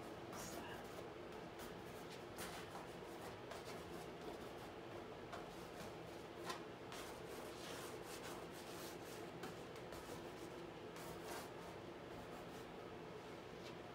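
Mark-making strokes on a stretched painting canvas: a series of short, irregular scratchy rubs, over a steady low room hum.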